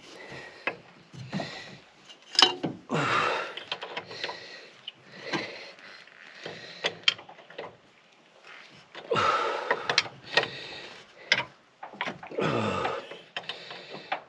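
Hand tools and metal parts clinking and knocking while bolts are fitted, a string of sharp clicks with a few short rasping, scraping bursts.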